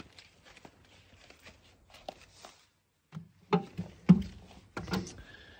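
Footsteps and knocks of someone moving about on an aluminium plate boat: faint clicks and taps of handling at first, then, after a brief hush, a few loud thumps on the deck and hull in the second half.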